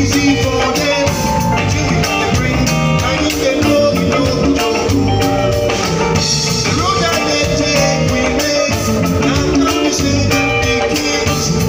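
Live band playing with a male lead singer: electric guitar, electric bass, drum kit and keyboards under the vocal, steady and loud.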